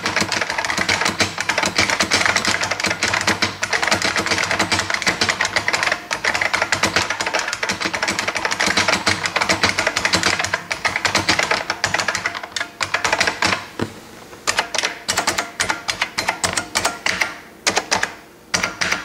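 IBM Model M keyboard's buckling-spring key switches clacking under fast, continuous typing, heard up close. About twelve seconds in, the typing thins out to separate, spaced keystrokes.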